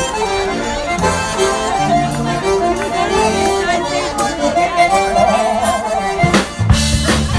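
Live band starting a slow blues song: a lone melodic lead instrument plays the intro, then drums and bass come in about six and a half seconds in.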